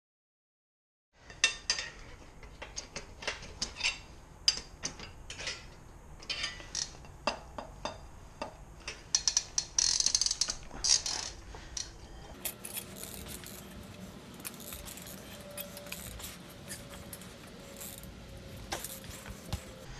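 Steel tire irons and the Moose Racing mousse bib changer's metal frame clinking, knocking and scraping against a dirt bike wheel rim as the tire is levered. A rapid string of sharp metallic clicks starts about a second in, with a longer scrape about halfway, then fewer clicks.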